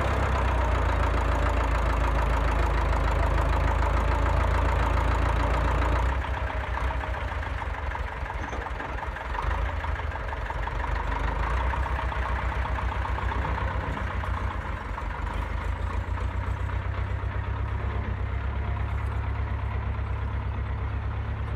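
Belarus tractor's diesel engine running, with an abrupt change in the sound about six seconds in, then a steady, even beat as the tractor drives off.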